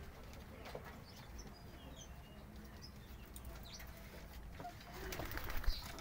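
Domestic pigeons in a loft, faint cooing with scattered short high chirps. A few sharp clicks come near the end.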